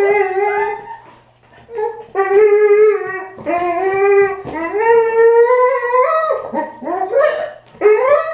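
A dog making a run of drawn-out, wavering howl-whines, about five in a row, each around a second long, several sliding upward in pitch at the end.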